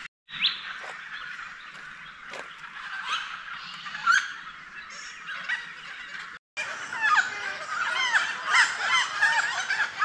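Noisy friarbirds calling, many birds at once, in a chorus of short calls that sweep up and down in pitch. The sound cuts out briefly just after the start and again about six and a half seconds in, after which the calling is much denser.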